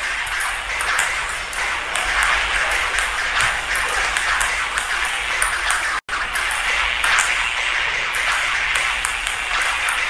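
Table tennis ball hits in a rapid rally: sharp clicks several times a second against paddles, nunchaku and table, over a steady hiss. The sound drops out for an instant about six seconds in.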